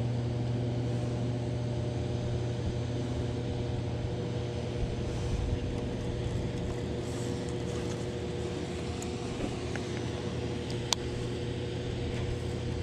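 Steady low electrical hum with a few higher overtones over a broad rushing background, from a hydroelectric dam's powerhouse and switchyard. A single sharp click near the end.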